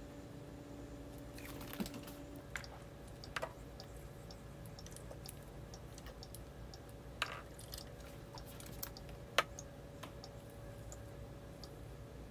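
Light, scattered clicks and taps of small containers being handled on a workbench: a jar of liquid latex masking and a small plastic paint cup, with the sharpest click near the end. Under them runs a faint steady hum.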